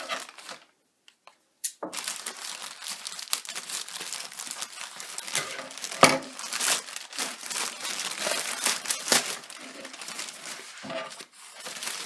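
Shipping packaging being torn open and crinkled by hand, with continuous rustling and crackling after a short pause near the start. A sharp knock about six seconds in.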